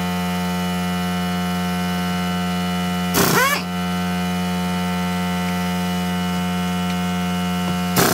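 Pneumatic impact gun running in two short bursts, about three seconds in and again near the end, each a quick rising whine, as it undoes cylinder head nuts. A steady electrical hum runs underneath.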